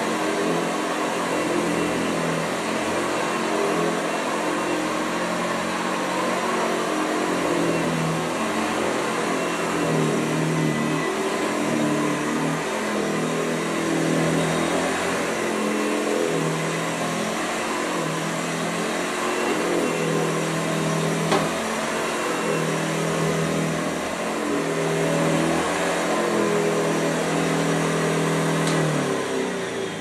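The single-speed 235 W motor of a c.1929 Hoover Model 575 upright vacuum cleaner is running, with the agitator growling on carpet. A low note comes and goes every second or two as the cleaner is pushed back and forth. Right at the end the sound begins to die away.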